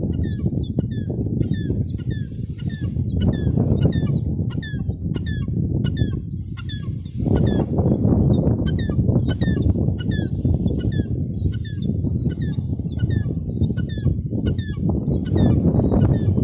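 Gulls calling: many short, high, squeaky calls repeating rapidly, over a loud low rumbling noise.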